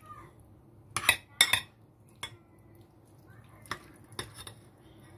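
A metal spoon clinking against a white ceramic serving bowl and plate as chicken is dished out: about five sharp clinks, the two loudest close together about a second in, then three lighter ones.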